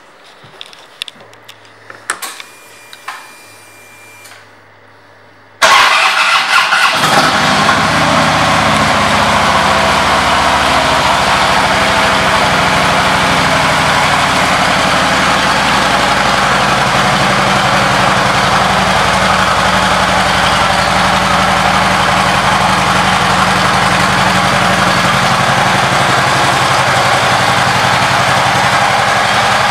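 Harley-Davidson Electra Glide's air-cooled V-twin engine: a few soft clicks, then about five and a half seconds in it starts with a loud burst and settles into a steady idle.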